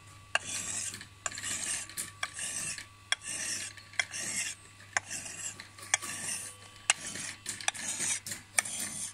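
Billhook blade being sharpened on a hand sharpening stone: about ten even rasping strokes, roughly one a second, each opening with a sharp click.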